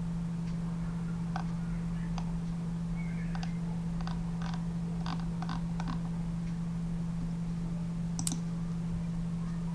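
Scattered clicks of a computer keyboard and mouse, about a dozen in the first six seconds and one sharper click near the end, over a steady low hum.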